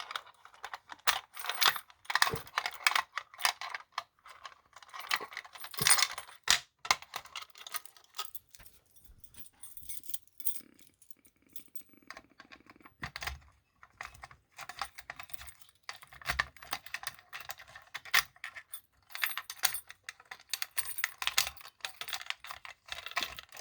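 Keys jangling on a ring and a key clicking and rattling in the lock of a Simplex fire alarm pull station while it is worked to reset the station; the lock is finicky, so the fiddling goes on in irregular bursts.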